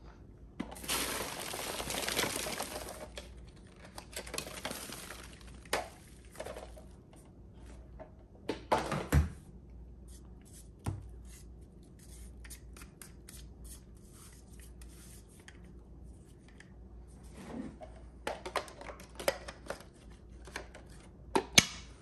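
Emptying a cordless stick vacuum's clear plastic dust bin into a bag-lined trash can: a rush of dust and debris pours into the plastic bag about a second in. Then come scattered clicks, taps and rattles as the bin and its metal cyclone filter are taken apart and clipped back together.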